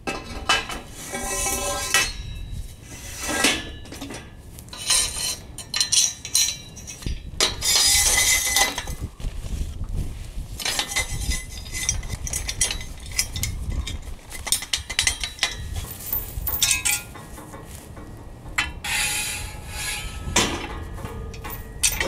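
Steel bars and square steel tubing clinking and clanking against each other as a frame is fitted together by hand, with a pin pushed through holes in the tubing; irregular metal knocks and scrapes.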